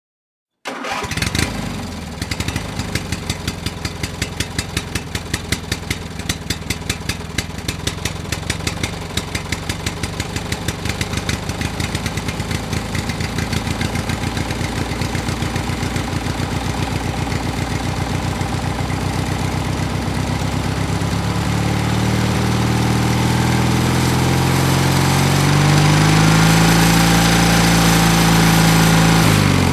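Two-stroke chainsaw engine starting up abruptly and idling with an uneven, pulsing beat. From about two-thirds of the way through it is revved, its pitch rising and falling, and it runs loudest near the end.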